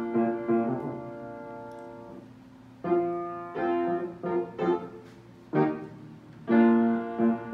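Solo piano music: slow chords and notes, each struck and left to ring out.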